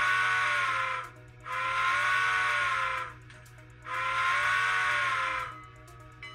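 Sound-equipped HO scale steam locomotive blowing its chime steam whistle: three long blasts with a breathy hiss, the first already sounding and ending about a second in, each blast sagging slightly in pitch as it ends.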